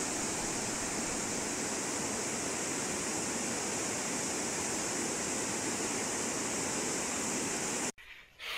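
Steady rushing noise that cuts off suddenly near the end.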